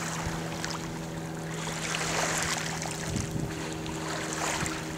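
Boat motor idling with a steady hum, under wind and water noise.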